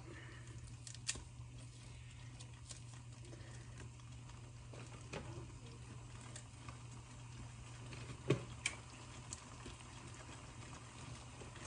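Faint, sparse clicks and soft taps of a raw onion being pulled apart into rings by hand and dropped into a pot of gravy, over a steady low hum.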